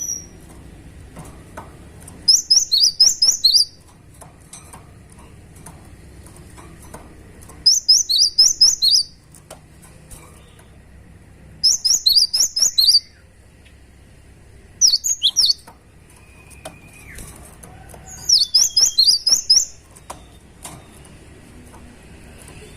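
Cinereous tit (gelatik batu) singing: five bursts of rapid, high chattering notes, each lasting about a second, a few seconds apart.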